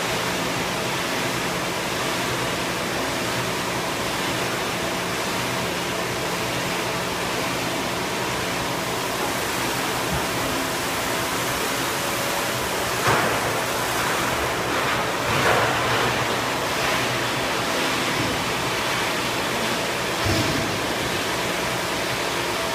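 Large injection molding machine running with its mold clamped shut, a steady loud hiss with a low hum under it. A few brief louder noises rise over it in the second half.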